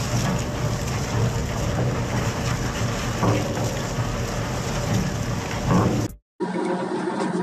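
Industrial shredder running under load: a steady, heavy mechanical din over a low hum, with occasional cracks as material is torn. About six seconds in it cuts off abruptly, and a different machine's steadier, more tonal hum follows.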